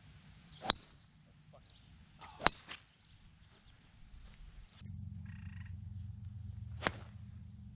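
A driver striking a golf ball with a sharp crack, followed by two more sharp clicks; from about five seconds in a low steady rumble sets in.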